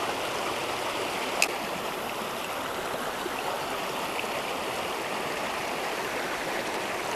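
Spillway water rushing steadily over rocks. One short sharp click comes about a second and a half in.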